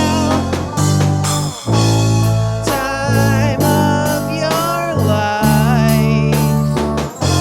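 Rock song playing: guitar over long held bass notes, with a lead melody that bends and wavers in pitch.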